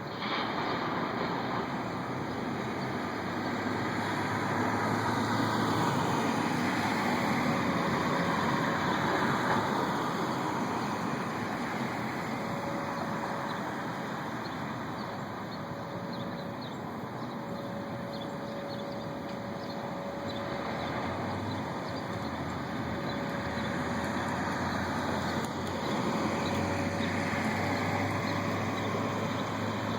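A continuous distant droning rumble with a faint steady hum in it, swelling and easing over several seconds at a time. It is an unexplained noise heard from the sky, and it sounds like far-off traffic or machinery.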